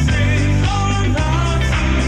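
Music: a song with a singing voice over a band, with a steady beat and a strong bass line.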